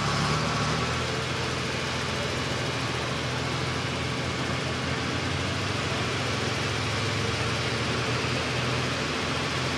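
International Harvester Limited Pro Stock pulling tractor's turbocharged diesel engine idling steadily while hooked to the sled before its pull.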